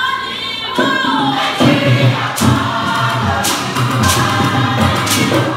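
A group of voices singing together, joined about a second in by a steady beat of low drum strokes with sharper, brighter hits over it.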